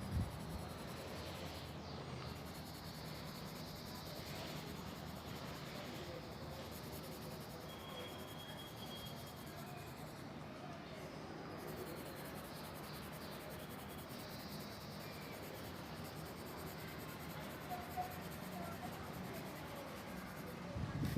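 Pencil scratching on paper in light, irregular strokes, over a steady low background hiss.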